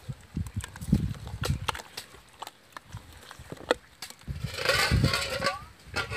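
A hand squeezing and mixing a wet banana panchamirtham in a steel bowl: irregular wet squelches and sharp clicks, with a longer, louder squishing stretch a little past the middle.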